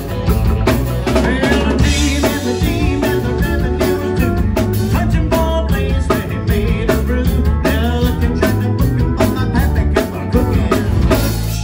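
Live country band playing, a drum kit keeping a steady beat under electric and acoustic guitars, bass and pedal steel guitar.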